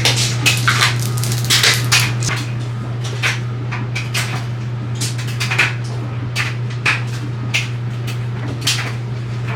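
Irregular light knocks and clatters of household items being handled during cleaning, over a steady low hum.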